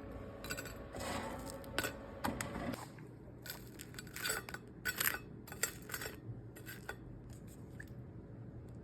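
Kitchen clatter: a string of clicks, clinks and scrapes as dishes and utensils are handled. It is busiest in the first three seconds and thins out by about seven seconds in.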